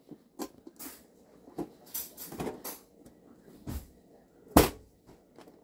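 Light clicks, knocks and rustles from a small latched box being handled, with one sharper knock about four and a half seconds in.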